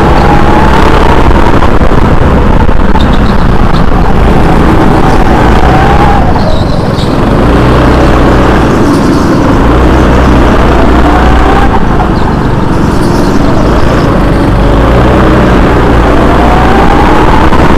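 Go-kart running at race speed, loud throughout. A whine climbs in pitch as the kart accelerates, drops away briefly about six and twelve seconds in, then climbs again.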